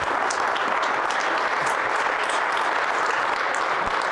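Audience applauding steadily, with individual hand claps standing out close by.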